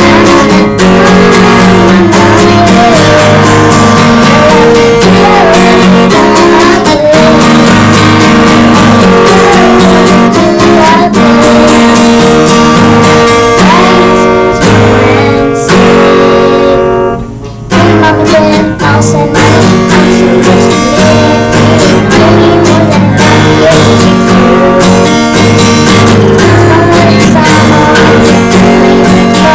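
Acoustic guitar strummed with a girl singing along. The music breaks off briefly a little past halfway, then resumes.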